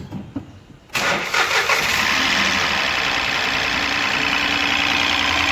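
Ford EcoSport's 1.5 three-cylinder Dragon engine started, catching about a second in and then running steadily with an abnormal noise from the top of the engine. The mechanic traces the noise to the intake camshaft. He blames its oil-control solenoid valve, clogged with debris shed by the oil-bathed timing belt.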